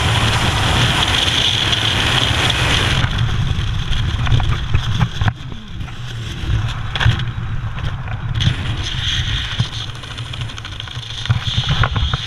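Freefall wind rushing and buffeting over the helmet camera's microphone, dropping off sharply about three seconds in as the parachute opens. Lower wind buffeting follows, with scattered sharp flaps and rustles from the canopy fabric and lines.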